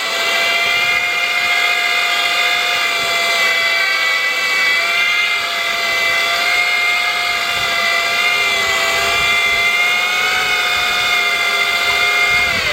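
Sur Ron Light Bee electric dirt bike doing a burnout: its electric motor holds a loud, steady, high-pitched whine, wavering slightly, as the rear tire spins.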